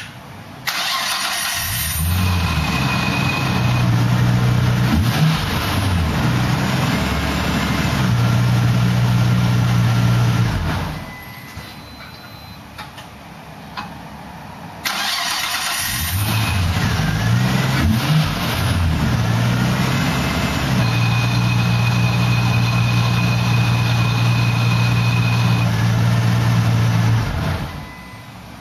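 Nissan Skyline ER34 25GT-t's turbocharged RB25DET straight-six, fitted with a URAS super single drift clutch, started twice. Each time it fires, wavers in pitch for a few seconds, settles into a steady idle and is switched off.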